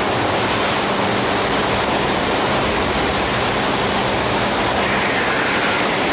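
Rough, foaming sea rushing and churning alongside a ship's hull, as a loud, unbroken wash of noise with a steady low hum underneath.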